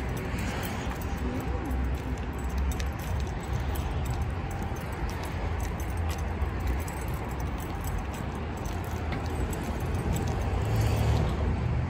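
Light jingling clicks, like keys jangling, over a steady low rumble.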